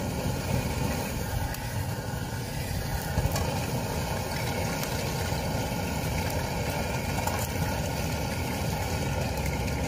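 Steady rushing roar of a portable gas camping stove burner running at full flame under a wok of heating oil, with a faint sizzle.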